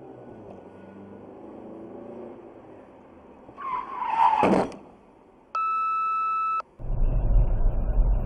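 Road and engine noise heard from inside a car in traffic, broken about three and a half seconds in by a short loud screech that falls in pitch. Next comes a steady electronic beep lasting about a second, and then a loud low rumble of road and wind noise.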